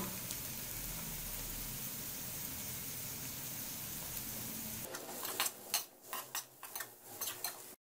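Chicken and onions sizzling steadily in oil in an aluminium karahi. About five seconds in, the steady sizzle gives way to the scraping and tapping of a metal spatula against the pan as the mixture is stirred.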